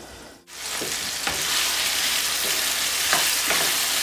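Diced potatoes and tomatoes sizzling in hot oil in a karahi on high flame. The sizzle starts suddenly about half a second in and then holds steady, with a few faint knocks.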